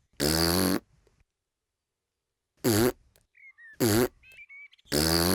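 Cartoon piglets blowing raspberries with their tongues stuck out: four buzzing blows, each about half a second long, the first the longest.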